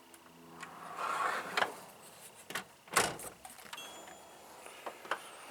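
Steel wrenches being handled in a metal toolbox: a few sharp metallic clinks and clatters, the loudest about three seconds in.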